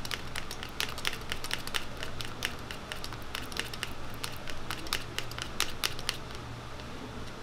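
Metal knife blade clicking and scraping against a plastic tub as it scoops thick clear glaze. The sharp ticks come in a quick, irregular run and stop about six seconds in.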